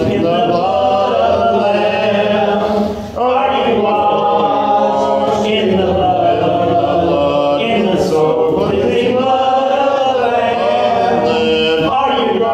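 Church congregation singing a hymn together, voices holding long notes, with a brief pause about three seconds in.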